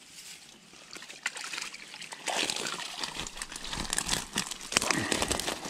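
Water streaming, dripping and splashing out of the mesh of a fishing keepnet as it is lifted out of the lake, beginning about two seconds in.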